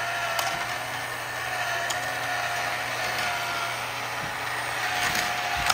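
Tomy Thomas' Race on the Rails toy racing set running: a steady, slightly wavering electric motor whine over the rattle of small plastic trains on the plastic track, with a few clicks.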